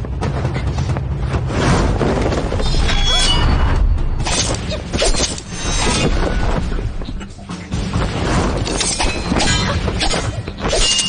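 Drama soundtrack of a fight scene: dramatic music with a run of sudden hits and crashes laid over it.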